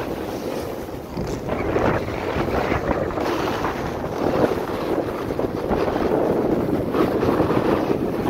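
Wind rushing over the microphone and a snowboard scraping over packed, groomed snow while riding downhill, a steady, uneven roar with small scraping surges.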